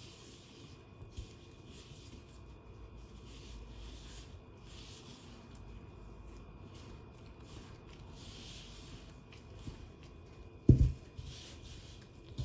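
Gloved hands rubbing and squeezing a crumbly baking-soda and oil mixture in a bowl, a soft gritty rustle that swells and fades. A dull thump near the end is the loudest sound.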